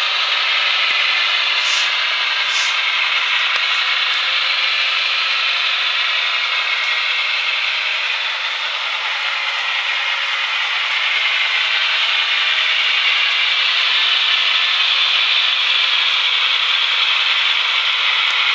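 Long model freight train rolling up a wooden model railway helix: a steady rasping rush of many small metal wheels on the rails, a little louder in the second half.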